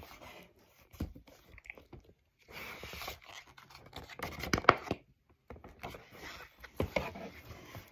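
Pages of a picture book being turned and handled: soft paper rustling and scraping, with a few light knocks.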